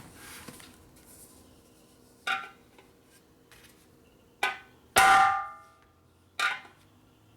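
Hammer blows on a steel motorcycle gas tank, knocking a dimple into it for clearance. Four blows: the loudest, about five seconds in, rings on metallically for about a second.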